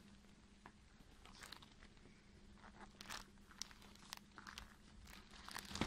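Faint crinkling of a clear plastic bag being handled, a few soft crackles scattered over a low steady hum.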